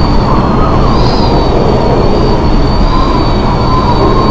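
Storm wind buffeting the microphone, with a steady high-pitched whistle over it.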